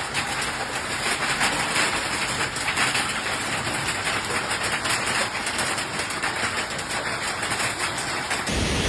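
Heavy rain falling, a steady dense hiss with a fine crackle. Near the end it changes abruptly to a deeper, heavier noise.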